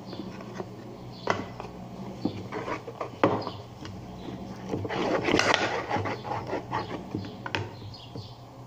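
Thick, stiff slime being worked and pulled by hand, giving sticky clicks and pops, with a longer crackling squish a little past the middle. A low steady hum runs underneath.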